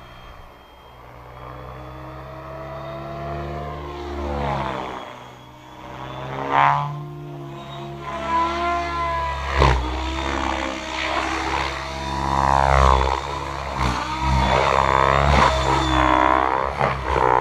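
Mikado Logo 690 SX electric RC helicopter in flight: its 693 mm main rotor, governed at 2050 rpm, and motor drivetrain make a stacked whine that sweeps up and down in pitch as it manoeuvres and passes. Quieter at first, it grows louder and busier about six seconds in, with a few sudden loud swells.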